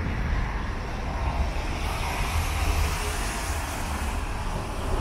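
Steady low rumble and hiss of passing vehicles, with the hiss swelling for a couple of seconds partway through.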